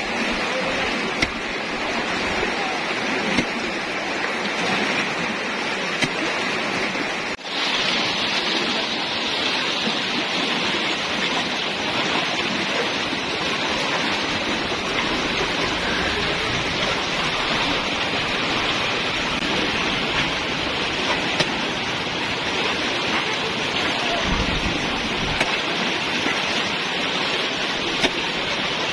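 Floodwater rushing steadily through a narrow channel, with a few small knocks and splashes; a brief break about seven seconds in, after which the rush sounds a little brighter.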